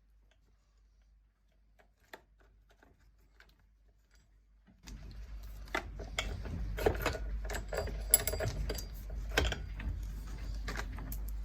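Faint clicks, then from about five seconds in a busy run of irregular metallic clinking and rattling as a chainsaw chain is handled.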